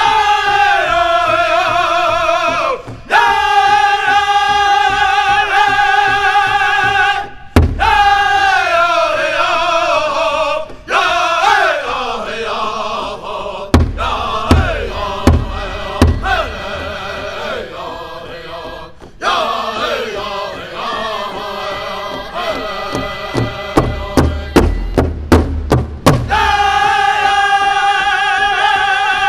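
Powwow drum group singing: high, held vocal notes and falling phrases sung together, with the big drum struck at times and in a fast run of beats about three-quarters of the way through.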